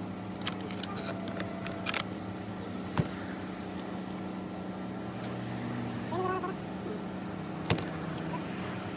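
Steady low mechanical hum with a few sharp clicks, the loudest about three seconds in and again near the end.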